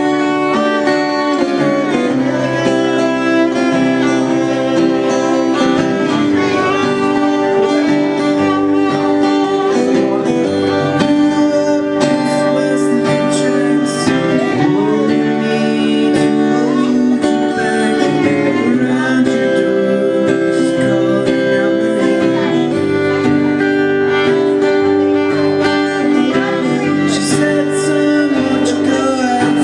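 Fiddle and acoustic guitar playing a tune together live, the fiddle's held and sliding notes over strummed guitar chords.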